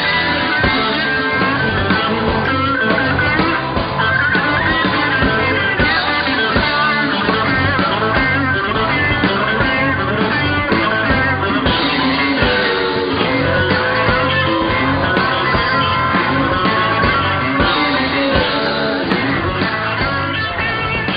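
Rock music led by guitar, with drum hits keeping the beat.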